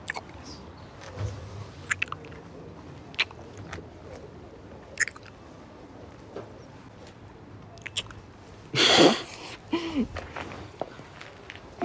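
Kissing at close range: soft, wet lip smacks at irregular intervals. About nine seconds in comes a louder rushing breath, and just after it a short murmured hum.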